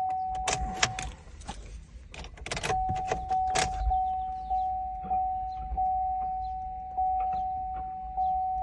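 Chevy's dashboard warning chime dinging over and over, a little under two dings a second, while the key is programmed with the ignition on. About a second in the chime pauses under a few clicks and rattles of the key being handled, then carries on.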